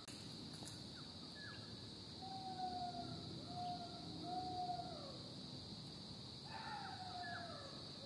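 Distant animal calls, drawn-out tones that each fall slightly at the end: three in a row from about two seconds in and another near the end. A steady high insect drone runs underneath.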